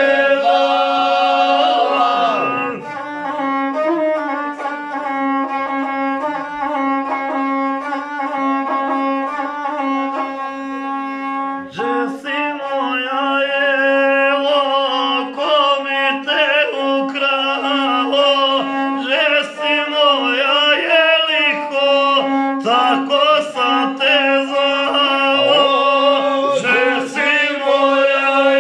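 Group of men singing a traditional folk song a cappella, one voice holding a steady low drone under the others. The voices hold long, level notes at first, then from about twelve seconds in the melody turns wavering and ornamented.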